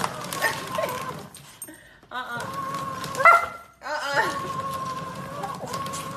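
Fellowes paper shredder's motor running in three spurts of one to two seconds, starting up each time paper is pushed into the slot and shredding it, with a short squeal about three seconds in.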